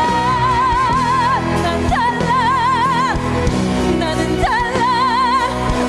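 A woman's voice singing a musical-theatre ballad, holding three long high notes with a wide vibrato over a sustained instrumental accompaniment.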